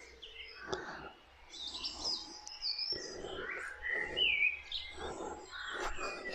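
Small birds chirping and singing in short whistled phrases, with one clear gliding note about two-thirds of the way in, over soft, irregular rustling.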